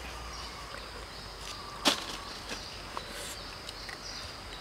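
Crisp bites into juicy watermelon and a knife cutting through the rind: a few sharp crunchy clicks, the loudest about two seconds in. A steady high hum of insects runs underneath.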